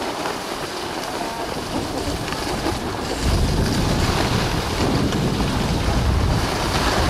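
Wind rushing over the microphone and skis hissing on snow while skiing downhill; the low wind rumble gets heavier about three seconds in.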